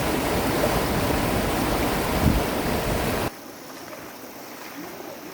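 Rushing mountain stream water with a strong current, loud and rumbling, close to the microphone. About three seconds in it drops suddenly to a much quieter, steady flow of water.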